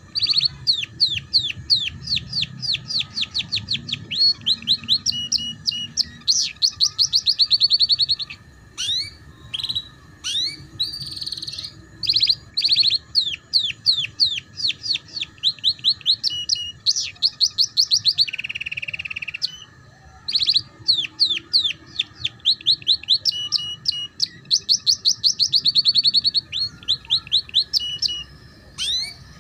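Domestic canary singing a fast rolling song in the 'ngeriwik' trilling style: long runs of rapid repeated chirps, about six a second, broken by short pauses, with a lower buzzy trill about 18 seconds in. It is a tutor song of the kind played to young canaries learning to sing.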